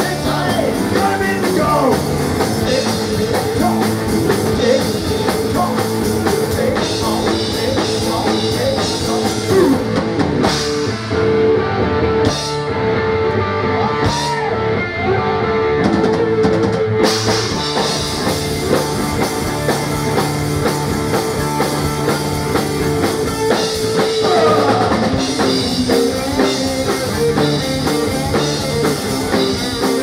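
Live rock band playing: drum kit, electric guitar and bass guitar through amplifiers. The cymbals fall silent for several seconds in the middle of the stretch before coming back in.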